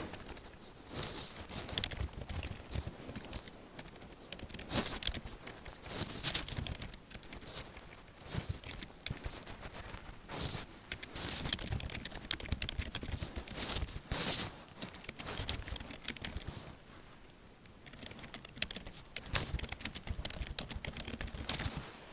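Computer keyboard being typed on and tapped close to the microphone: a dense, irregular run of key clicks and clatter, with louder strokes standing out every second or two and a brief lull about two-thirds of the way through.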